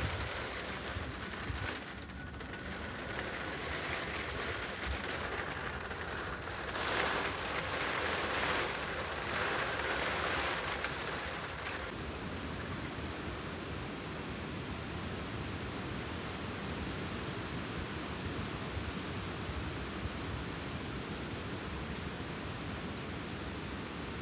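Steady outdoor hiss with no clear tone. It is rough and rustling in the first half, then changes suddenly about halfway through to the even wash of a pond fountain's splashing water.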